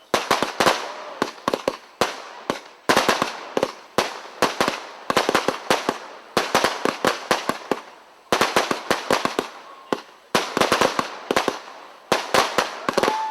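Consumer fireworks going off in quick salvos: clusters of sharp bangs and crackles, a new cluster about once a second.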